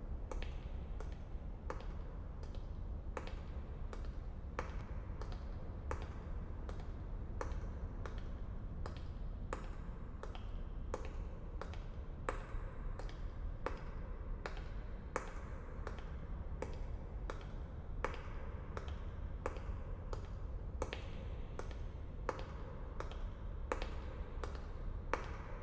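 Hard-soled footsteps on a stone floor, slow and even at about one and a half steps a second, over a steady low rumble.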